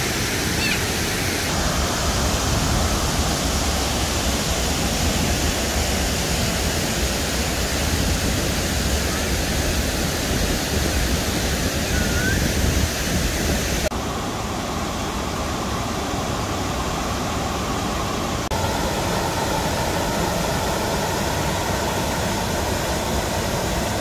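Rushing water of a waterfall and its whitewater rapids: a steady, loud hiss, shifting abruptly in tone a few times.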